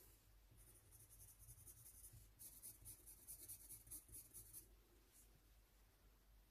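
Faint scratching of a blue coloured pencil shading on paper in quick back-and-forth strokes, which stop about two-thirds of the way through.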